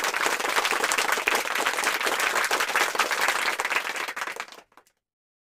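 A roomful of people applauding, many hands clapping at once; it cuts off abruptly near the end.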